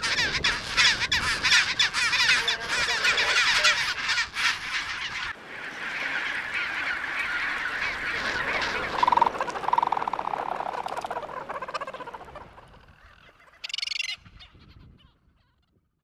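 Dense chorus of a bird colony, many birds calling over one another. It thins out about five seconds in, with one clearer call a few seconds later, then fades away, with a brief hiss just before it ends.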